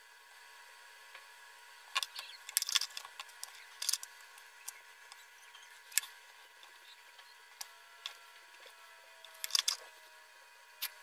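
Scattered sharp clicks and taps of small hand tools, pliers and a soldering iron, and parts being handled on a workbench during soldering of a drone flight controller, some in quick clusters, over a faint steady hum.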